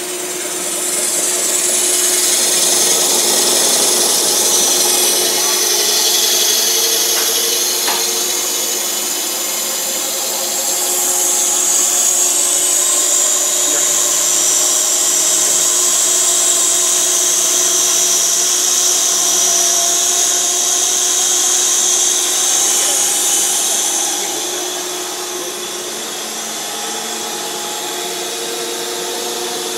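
Paul O. Abbe ribbon blender's electric motor and gear reducer running: a steady hum under a loud hiss. The hiss eases off near the end.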